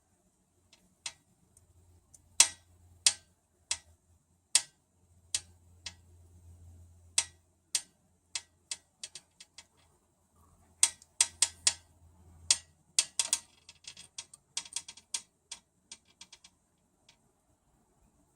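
Sharp, irregular clicks and taps from a pet budgerigar, sparse at first and then bunching into quick runs of ticks.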